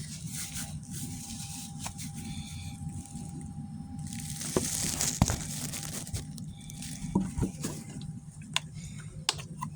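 Rustling, crinkling and light clicks of oil being wiped up with rubbing alcohol. About four seconds in there is a short rushing hiss.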